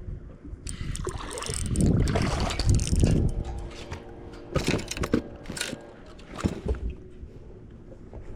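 Water splashing and sloshing for a couple of seconds, then a run of sharp knocks and thuds on a fishing boat as a just-caught bass is handled.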